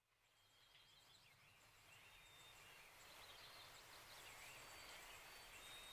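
Near silence: a faint hiss fades in, with faint wavering high chirps running through it.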